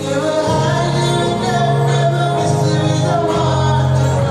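Live gospel worship music: a lead singer and choir singing over sustained low accompaniment notes that change pitch about every second.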